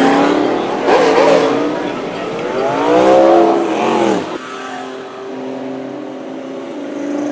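Car engines revving in short blips, each rising and then falling in pitch, about a second in and again around three seconds in. At about four seconds the sound cuts abruptly to a quieter, steadier engine note.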